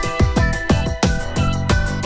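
Background music with a fast electronic beat, about four strong drum hits a second under a melody.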